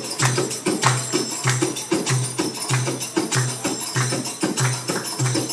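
Belly dance drum solo music: a fast Middle Eastern hand-drum rhythm of sharp strokes with tambourine jingles over a low note repeating about every half second.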